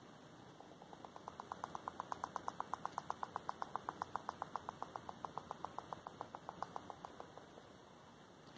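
A porcupine gnawing, its incisors scraping at the tree in a quick, even run of strokes about seven or eight a second. The strokes swell and then fade over about six seconds.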